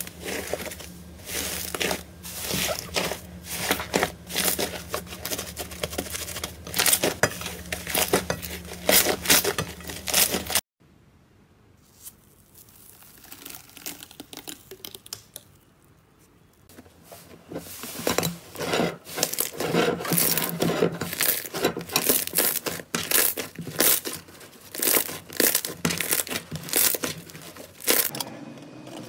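Hands squeezing and kneading slime: a dense run of small crackles and pops, with a cut about ten seconds in to a much quieter stretch before the crackling picks up again.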